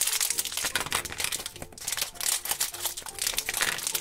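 Shiny orange foil blind-bag wrapper crinkling as it is pulled and worked open by hand: a dense run of quick crackles.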